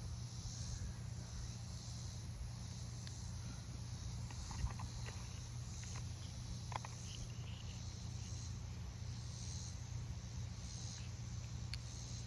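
Insects chirping in a steady, pulsing chorus, over a steady low hum. A few small clicks, the sharpest about four and a half seconds in.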